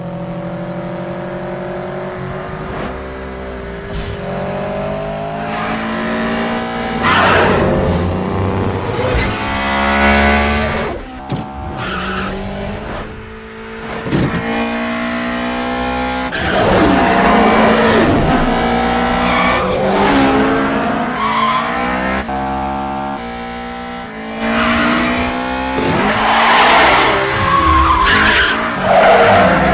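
Mitsubishi Lancer Evolution VII and Eclipse Spyder engines revving hard in film race-scene sound effects, the pitch climbing and dropping back with each gear change, the sound cutting abruptly between shots. Tyres squeal and skid in several stretches, loudest near the end as the Evo does a smoking burnout.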